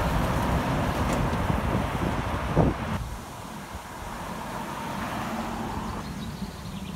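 A heavy cab-over truck towing a trailer passes close by, its engine and tyre noise loud, with a brief sharp sound just before it fades. Then, after a cut, quieter road noise as a car passes and a steady low engine hum from an approaching truck.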